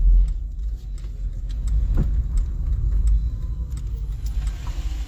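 Car driving, heard from inside the cabin: a steady low engine and road rumble with light scattered clicks and rattles, and one louder knock about two seconds in.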